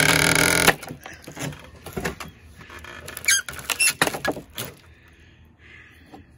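Nails squealing and wood creaking and cracking as nailed oriented strand board is pried off wooden benchwork. A loud squeal first, then a run of sharp cracks and short squeaks that die away about two thirds of the way through.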